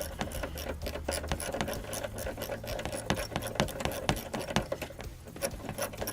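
Rapid clicking of a ratchet wrench working the battery tray bolts loose, with a few louder metallic clicks near the middle.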